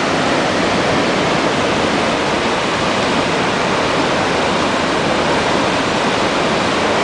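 Water pouring through sluice-gate openings into a concrete canal channel at high flow, a steady, unbroken rush.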